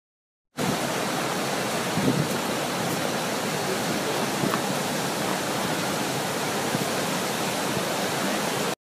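Large waterfall rushing, a loud, even, steady noise of falling water. It starts abruptly about half a second in and cuts off suddenly at the end.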